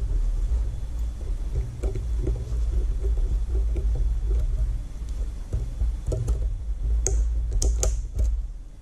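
A steady low hum, with a few small sharp metal clicks near the end as split ring pliers work a split ring onto the jig's eye.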